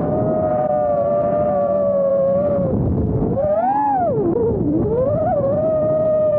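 FPV quadcopter's motors whining at a steady pitch, with wind and propeller noise beneath. About halfway through the pitch rises, falls low and climbs back as the throttle is punched and chopped.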